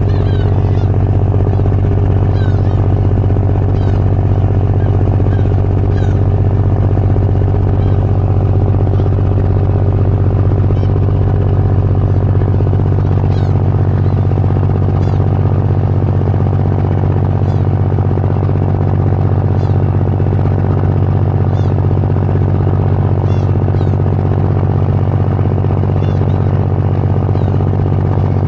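Steady low engine drone, most likely a car ferry's engine running at constant speed, with faint short high chirps now and then.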